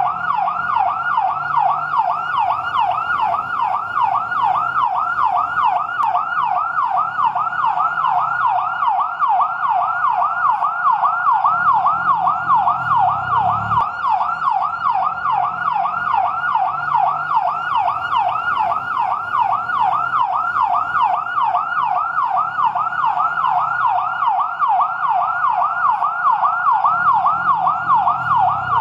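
Fire truck's yelp siren wailing in rapid, continuous up-and-down sweeps, about three a second, over a faint low rumble.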